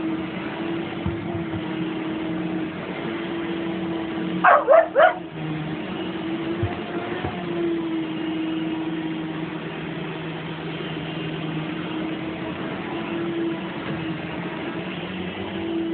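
Husky howling in long, held notes over the steady noise of a running vacuum cleaner, with a quick burst of about three yips roughly four and a half seconds in.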